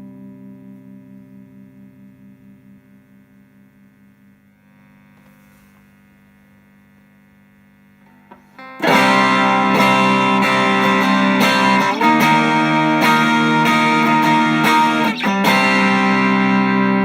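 Electric guitar played through an Ibanez Tube Screamer Mini overdrive pedal. A held chord rings and slowly fades, then about nine seconds in loud overdriven chords are strummed in a rhythm and left to ring near the end.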